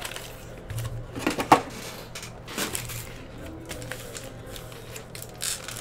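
Foil-wrapped Donruss football card packs being handled and set down on a table: irregular crinkling of the wrappers with a few light knocks, the sharpest about one and a half seconds in.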